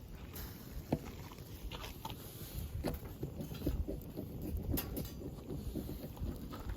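Wood fire crackling in a FIREBOX G2 stove: irregular sharp pops and snaps over a low rumble.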